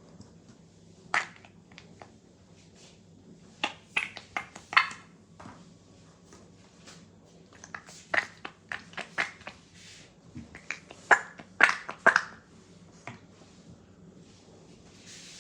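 Irregular short clicks, taps and rustles of small objects being handled, coming in clusters with quiet gaps between.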